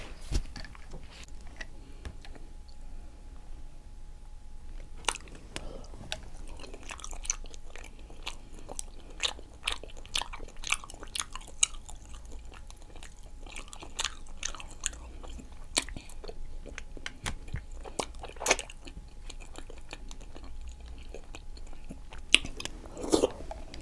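A person chewing octopus close to the microphone, with irregular small clicks from the mouth throughout.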